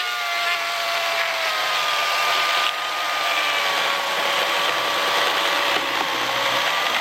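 Oregon self-sharpening electric chainsaw running at full speed and cutting through a dry log, with a steady motor whine that sags slightly in pitch under load over the noise of the chain in the wood.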